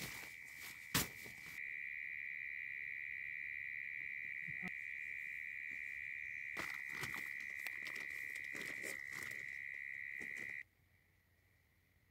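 Insects trilling steadily on one high pitch, cut off abruptly near the end. Over it, plastic sheeting rustles and crinkles, with a sharp click about a second in and more rustling a little past the middle.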